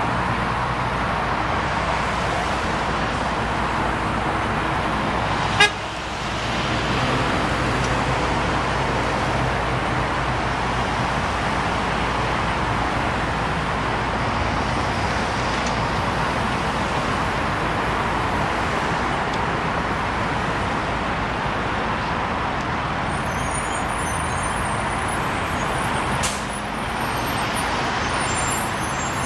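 Steady road traffic noise as cars pass on a city street. A sharp click comes about five and a half seconds in, and a smaller one near the end.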